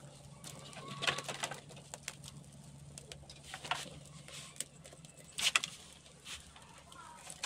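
Dry sticks and straw being handled and pushed into a wood cooking fire, with scattered snaps and clicks, the loudest about a second in and again near five and a half seconds in.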